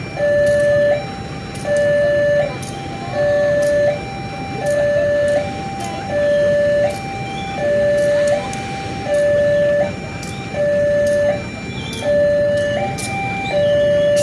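Railway level-crossing warning alarm sounding steadily, a two-tone electronic signal alternating between a louder low tone and a higher one, about one pair every second and a half: the crossing is warning of an approaching train.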